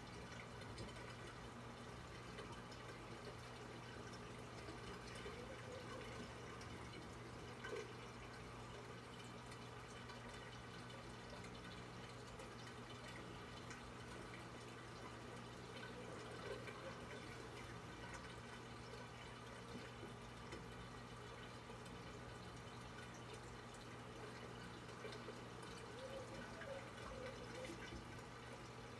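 Faint trickling and dripping of water from a reef aquarium's water circulation, over a steady low hum.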